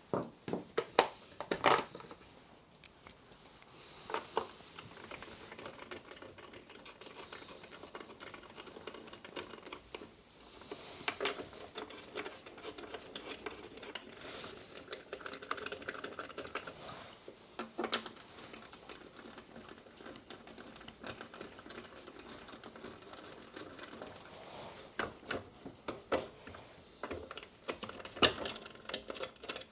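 Scattered clicks, clinks and knocks of hand tools and small metal parts being handled while a lawnmower carburettor is unbolted and taken off, loudest in the first two seconds.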